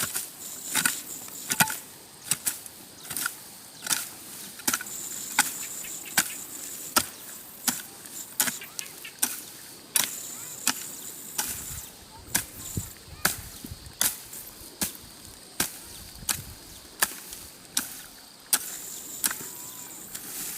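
A hand tool's blade, a hoe or shovel, chopping into grassy ground in steady strokes, about one a second, as grass is cleared by hand.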